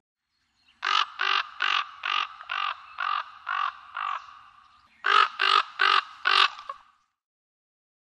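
Raven calling: a run of about eight harsh caws, evenly spaced and fading, then after a short pause four louder caws.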